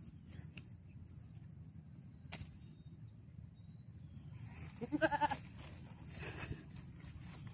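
A goat bleats once about five seconds in, a short quavering call, followed by a fainter second call, over a low steady background rumble.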